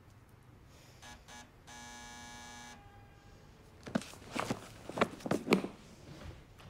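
An apartment door buzzer sounding: two short buzzes, then one steady buzz lasting about a second. A few seconds later comes a run of sharp, irregular clacks, the loudest sounds here.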